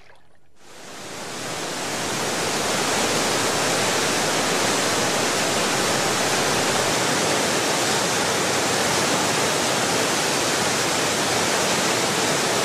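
Water of Murchison Falls on the Nile rushing steadily: a dense, even noise that fades in over the first two seconds, then holds.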